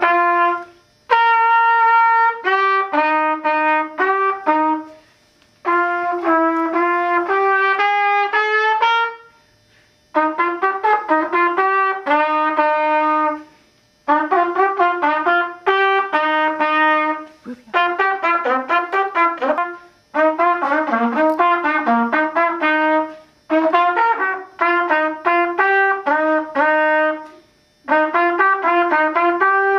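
A brass instrument played live: a run of melodic phrases of several notes each, with short breaks between them.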